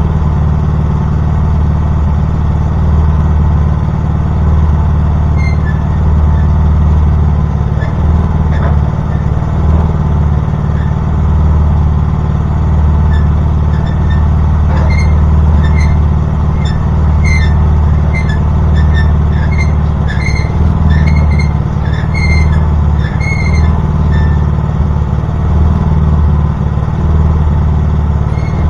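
Log splitter's gasoline engine running at a steady speed, with a run of short high squeaks through the middle.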